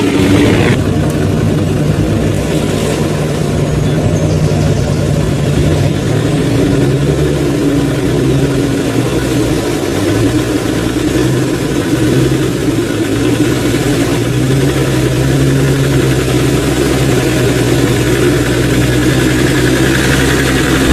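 Off-road 4x4's engine running steadily at low revs, its pitch shifting up and down a little.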